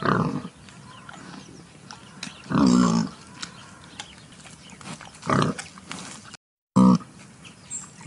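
Wild boar grunting: four short, pitched grunts spaced a couple of seconds apart, with faint rustling and clicks between them.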